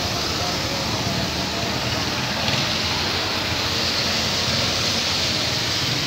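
Steady vehicle rumble and hiss with no clear pitch or rhythm, the noise of a coach bus terminal.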